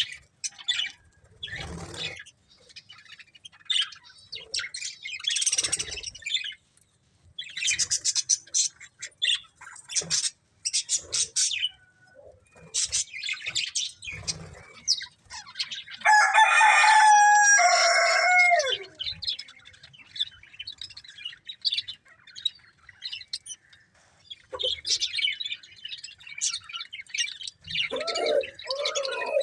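Budgerigars chirping and chattering in short, high, irregular bursts. About sixteen seconds in comes a louder, harsher call lasting a few seconds that drops in pitch at its end.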